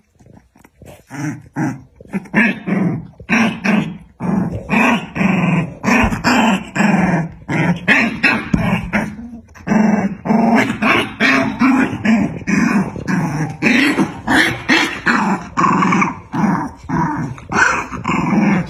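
Puppies growling and yipping in a play-fight: a rapid string of short growls, about two a second, starting about a second in.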